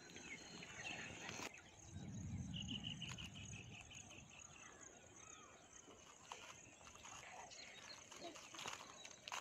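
Sun-dried potato chips crackling and rustling faintly as hands toss them with chilli powder, in scattered dry clicks. A short rapid bird trill sounds about two and a half seconds in.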